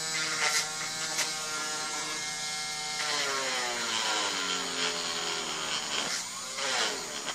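Cordless Dremel rotary tool running with a headless nail in its chuck, a steady whine for the first few seconds. From about three seconds in, its pitch repeatedly sags and recovers as the nail is pressed into the plastic bolt tip to friction-melt it.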